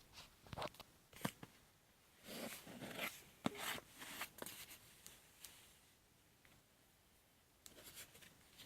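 Faint handling of a package being unboxed: scattered rustles, scrapes and sharp clicks of packaging material. It goes quiet for about two seconds past the middle, then starts again near the end.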